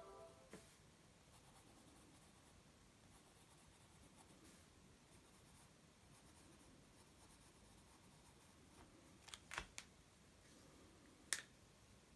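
Faint pencil scratching on sketchbook paper as lines are drawn, with a quick cluster of three sharp clicks about nine and a half seconds in and one more sharp click near the end.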